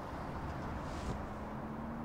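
Steady low rumbling background ambience. A faint low held tone comes in about a second in, just after a brief soft hiss.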